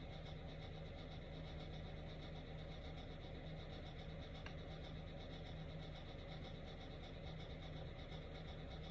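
Faint, steady room tone: a low hum with an even hiss, and one faint click about halfway through.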